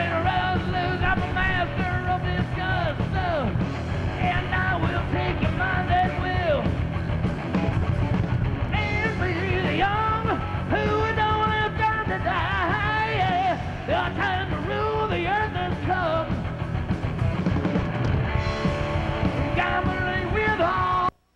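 Heavy metal band playing live, with distorted electric guitar leads full of bent and wavering notes over bass guitar and drums. The music cuts off abruptly near the end.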